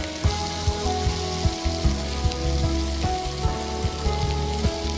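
Chicken patties sizzling and frying on hot grill pans as they are turned, under background music with a steady beat.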